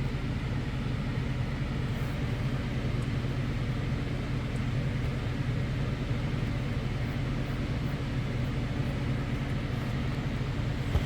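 Steady low mechanical hum over a constant background rush, unchanging throughout.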